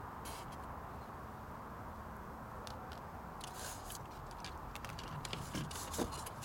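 Packaging being handled as small parts are lifted out of a cardboard box's insert: scattered rustles and light plastic clicks, busier with a small knock near the end, over a steady background hiss.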